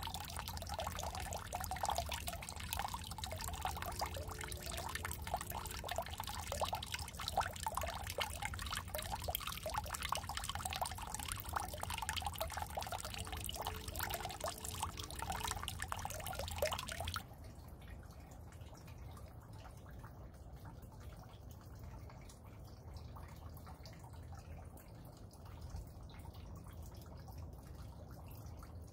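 Raindrops falling into a shallow puddle: a dense patter of small drips and plops on the water. About two-thirds of the way through it cuts abruptly to a much quieter, softer patter of rain.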